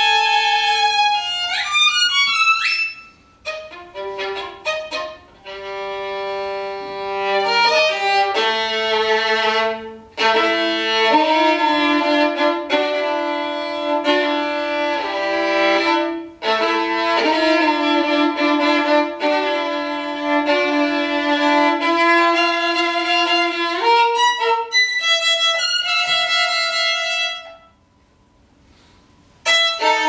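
Solo violin playing. Quick high notes and slides come first, then long held notes, then another short run of fast high notes. A pause of about two seconds near the end breaks the playing before it resumes.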